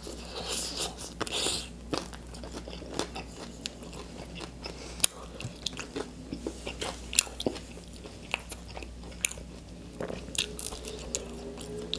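Close-miked chewing and biting of crispy fried chicken wings, with irregular crunches and wet mouth clicks throughout.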